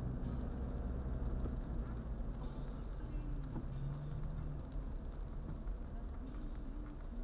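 Car cabin noise picked up by a dashcam: steady low engine and tyre rumble of a car driving on a wet road, with a brief faint higher hiss three times.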